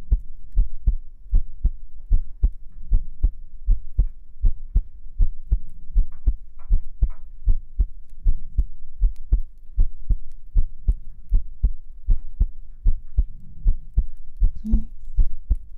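A person's heartbeat heard close up: a steady, even run of low double beats (lub-dub).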